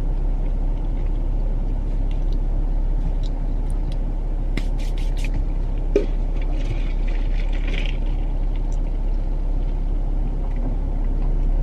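Steady low hum inside a parked car's cabin with the engine idling and the air conditioning running, with a few faint clicks and a brief rustle near the middle.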